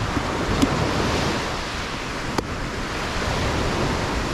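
Surf washing on a pebble shore, with wind on the microphone. One sharp knock about two and a half seconds in, from a machete cutting into a green jelly coconut.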